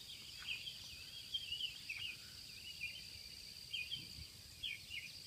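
Countryside dawn ambience: birds singing in short, repeated chirping phrases over a steady high-pitched insect chorus.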